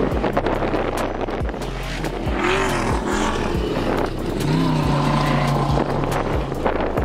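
Ultra 4 off-road race car's engine revving up and down as it races across dirt, mixed with background music that has a steady beat and bass.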